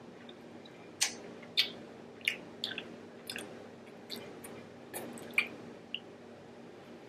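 Close-miked eating sounds: a dozen or so sharp, wet smacks and clicks from chewing and handling sauce-soaked king crab meat. They come irregularly from about a second in until near the end.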